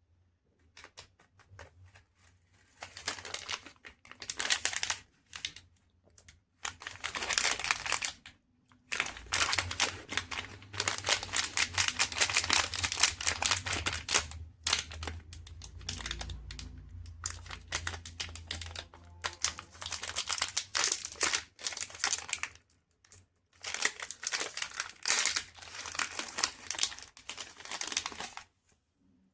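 Chocolate wrapper crinkling and tearing in irregular bursts of a few seconds each, with short pauses between.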